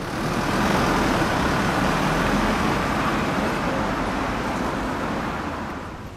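Road traffic at a city intersection: a steady rush of tyre and engine noise from passing vehicles. It begins abruptly and eases off near the end.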